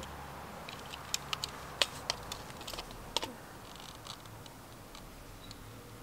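Small sharp clicks and ticks of hands working a GFCI receptacle as a ground pigtail wire is tightened onto its green terminal screw, a dozen or so irregular clicks in the first half, thinning out after.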